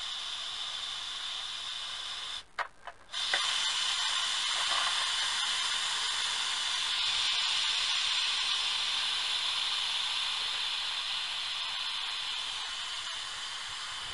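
Instant Pot electric pressure cooker venting steam through its lid release valve after cooking, a steady hiss. About two and a half seconds in it cuts out briefly with a few clicks, then comes back louder and slowly tapers off.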